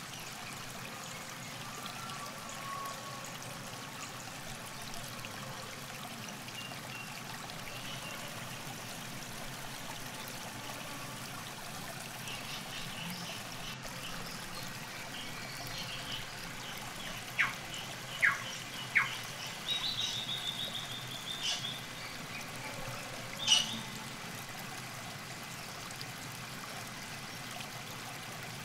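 Steady trickle of river water at the bank. Midway through, a bird calls: three sharp chirps, a short rapid trill, then one more call.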